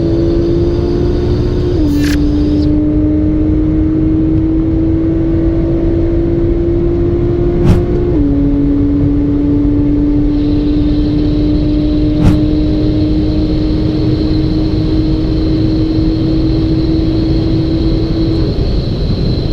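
Sportbike engine pulling hard under heavy wind noise. It shifts up twice, and after each shift the engine note drops, then slowly climbs again.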